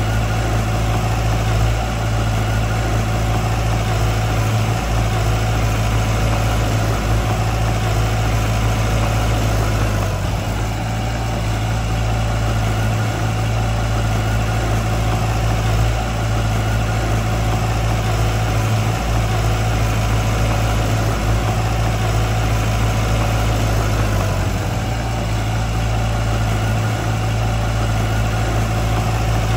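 Heavy-equipment diesel engine running steadily at an even speed, a constant low drone.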